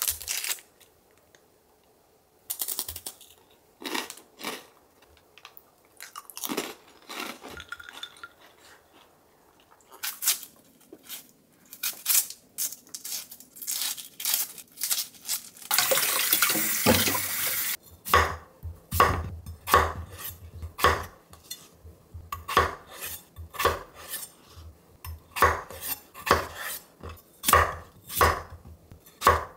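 Kitchen prep sounds: a snack wrapper crinkling at the start and scattered handling clicks, then a tap running for about two seconds. A chef's knife then chops a peeled potato on a wooden cutting board in a steady run of sharp strikes.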